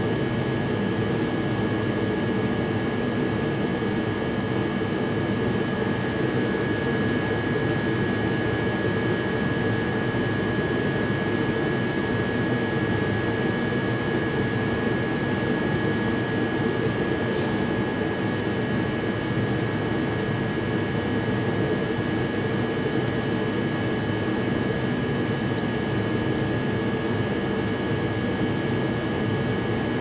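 Steady whooshing machine drone with a constant high-pitched whine, like a fan or blower running.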